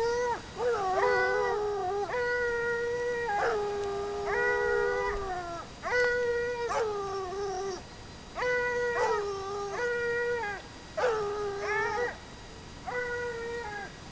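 Ariégeois scent hounds baying on a hare's trail: about nine long, drawn-out calls, each held a second or more and some dropping in pitch at the end, with two hounds at times giving voice together.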